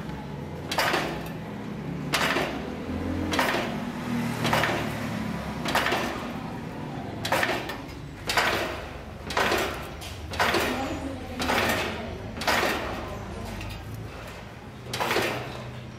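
Spot welder welding stainless steel strips onto a round basket base: a short crackling burst with each weld, roughly one a second, over a low steady hum.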